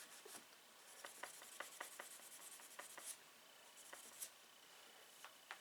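Faint scratchy strokes of steel wool rubbing on a small pocketknife's steel blade, with a few light clicks.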